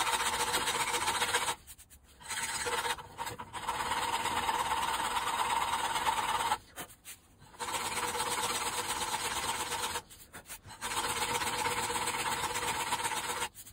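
A power grinder running against the cast-iron body of a small Record vise, shaping the ridge on its back. It grinds steadily in several stretches of a few seconds, each starting and stopping abruptly.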